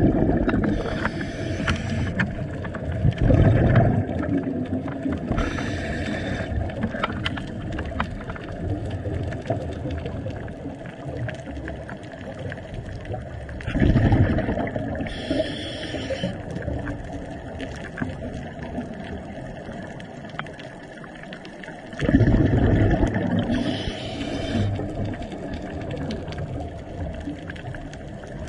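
Scuba diver breathing through a regulator underwater: a burst of exhaled bubbles roughly every eight seconds, over steady water noise.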